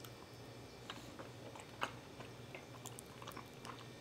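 Close-up chewing of a mouthful of ravioli: faint, soft, wet mouth clicks scattered through, one sharper click about two seconds in.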